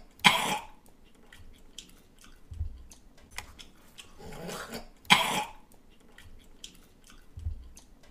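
A person coughing: two loud, short coughs about five seconds apart, with quieter sounds in between.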